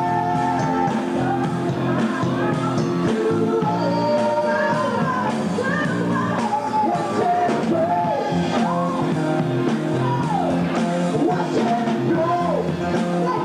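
Rock song with a lead singing voice over a steady bass line and guitar.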